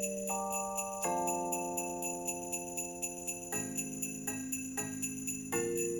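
Background Christmas music: sleigh bells shaken in a steady rhythm of about four shakes a second over held chords that change every second or two.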